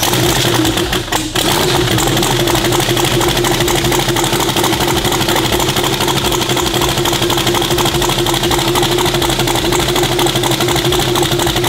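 Turbocharged engine of a 2006 Jeep idling steadily just after start-up, on its factory throttle body and a fresh tune, with a constant droning tone over the running noise. The engine is still cold and warming up.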